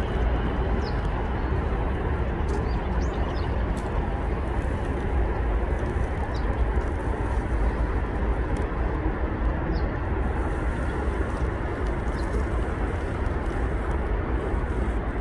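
Steady outdoor background rumble, heaviest in the low end, with a few faint short bird chirps now and then.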